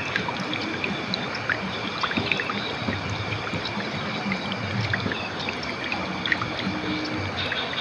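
River water flowing over rocks: a steady rushing with many small splashes and gurgles.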